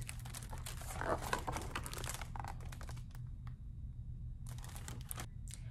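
A hardcover picture book being handled and its pages turned: paper rustling and crinkling through the first couple of seconds, then a few sharp clicks near the end.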